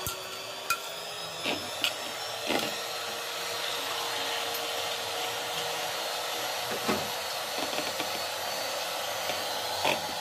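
Electric hand mixer running steadily, its beaters whisking egg whites in a plastic bowl. The motor whine climbs a little in pitch during the first second or two, then holds steady, with a few short knocks along the way.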